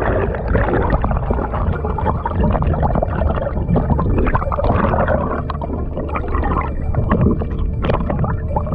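Muffled underwater rushing and gurgling of water heard through a submerged camera, with many small crackles and knocks.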